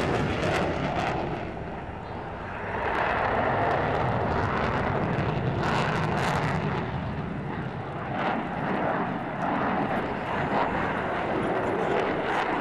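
F-16 fighter jet with a single General Electric F110 turbofan, maneuvering overhead: loud, steady jet engine noise, afterburner lit at the start, dipping about two seconds in and then swelling back and holding.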